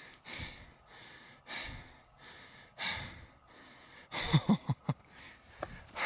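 A man breathing hard, with audible breaths about every second and a quarter, and a few short, low vocal sounds about four seconds in.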